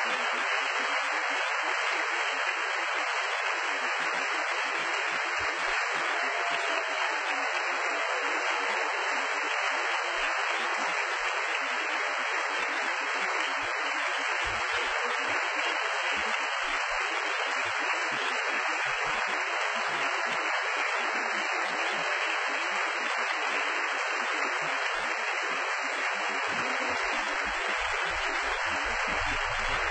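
Audience applauding, a steady, unbroken wash of clapping with no music playing.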